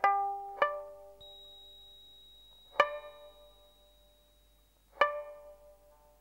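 Film score music: a plucked Chinese string instrument sounding sparse, ringing notes, two close together at the start and then single strikes about two seconds apart, each left to fade, over a faint high held tone.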